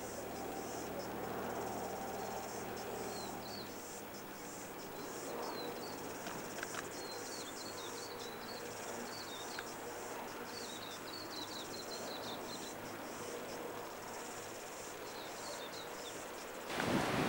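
Insects chirping steadily in a high, fast chirring, with many short repeated chirps just below it. A low steady hum stops abruptly about four seconds in, and near the end the sound gives way to a louder rushing noise.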